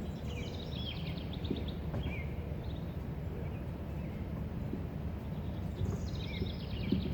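Songbirds singing: a rapid, descending trill near the start and again near the end, with short chirps in between, over a steady low rumble.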